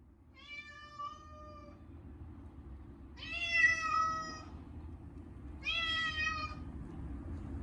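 Munchkin cat meowing loudly three times in long drawn-out yowls, each about a second and a half and dipping slightly in pitch, protesting at being bathed. A steady low rumble runs underneath.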